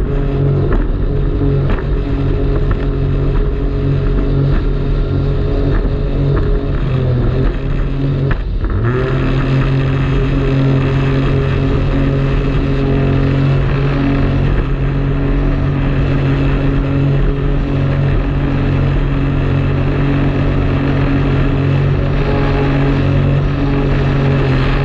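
Jet ski engine running steadily at speed, a loud even drone; about eight seconds in the revs briefly drop off and then come back up.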